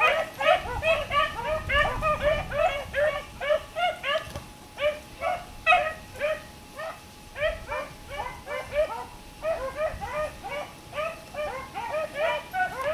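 A pack of hunting hounds baying in a steady chorus of short, overlapping barks, several a second.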